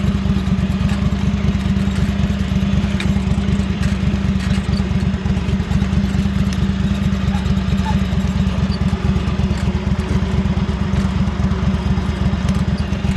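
Small lawn mower engine running steadily out of a truck exhaust pipe strapped onto its exhaust, an even rapid putter.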